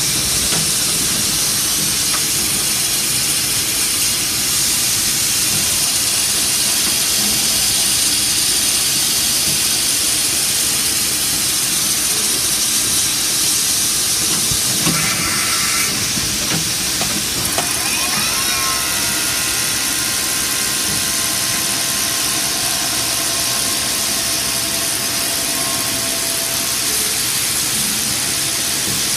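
CNC vertical machining center running with a steady, loud hiss. A short whir comes near the middle, and a little past halfway a rising whine settles into a steady high tone that holds almost to the end.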